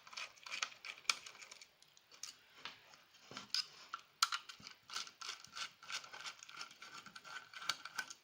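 Rapid light clicks, taps and small rattles of hand tools and small metal parts being handled during the assembly of a soldering-station enclosure.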